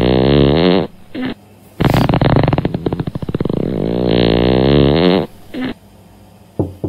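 Two long, buzzy farts from a child on the toilet, the second lasting about three seconds, their pitch wavering down and back up.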